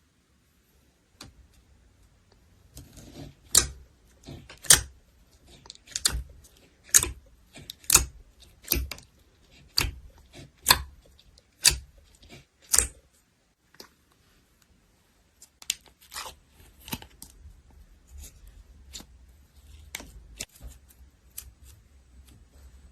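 Slime being worked by hand, giving a run of sharp pops about once a second, then after a short pause a stretch of softer, quicker crackles.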